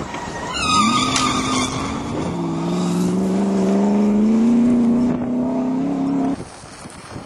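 Off-road race car engine running hard under load, its pitch climbing slowly, then cutting off abruptly near the end. A brief high squeal about a second in.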